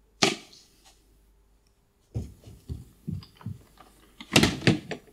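Footsteps thudding on a wooden porch, about three a second, after a sharp knock. Near the end comes a loud clatter of knocks, like a door being handled.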